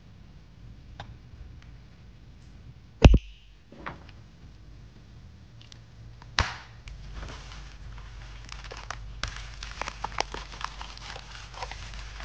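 Plastic sheets of press-on nails and packaging handled close to the microphone. There is one sharp loud snap about three seconds in and another click about six seconds in, then a steady run of small crinkling ticks and taps of plastic.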